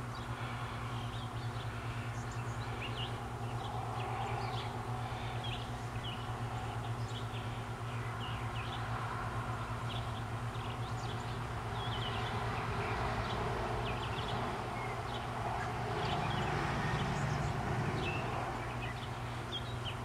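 Outdoor ambience: many short, high bird chirps over a steady low hum.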